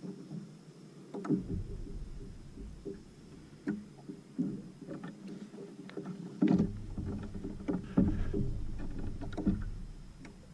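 Water lapping and slapping against a plastic kayak hull, with irregular knocks. A deep wind rumble on the microphone comes and goes.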